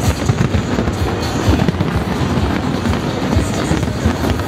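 Fireworks bursting in quick succession, a dense run of low thumps, heard over the display's music soundtrack playing from loudspeakers.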